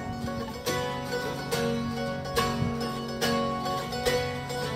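Live music: guitar chords strummed in a steady rhythm, an instrumental passage of a pop-folk song with no singing.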